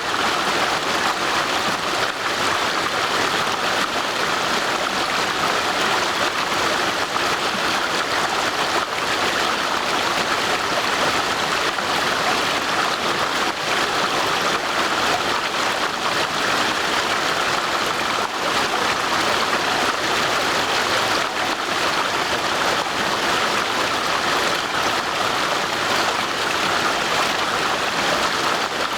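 Water of a brook rushing and splashing over stones in a steady, unbroken flow.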